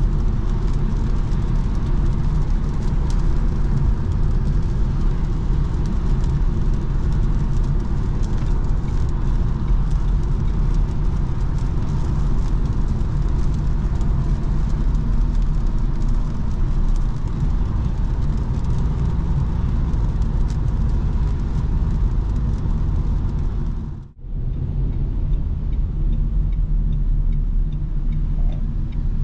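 Steady in-cabin driving noise of a Renault Clio with a 1.0 TCe three-cylinder petrol engine: low engine and road rumble with tyre hiss from a wet road. It drops out briefly near the end and comes back with less hiss.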